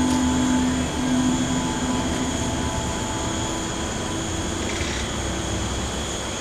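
Field crickets singing in a steady chorus, over a low rumbling hum with a droning tone that fades about two and a half seconds in.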